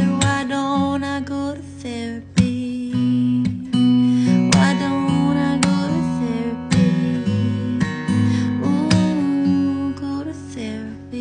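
Strummed acoustic guitar under a woman's singing voice in an original country song. The chords ring and the playing dies away near the end.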